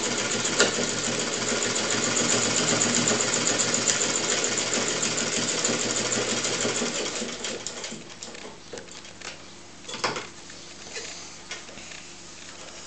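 Standard Manufacturing Company Singer 15-clone sewing machine, hand-cranked, running steadily while it stitches through four layers of denim. It stops about seven seconds in, leaving a few light clicks and a knock about ten seconds in.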